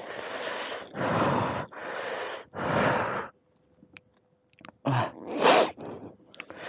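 A man breathing heavily: four quick, noisy breaths about a second apart, a short pause, then a louder, partly voiced sigh about five seconds in.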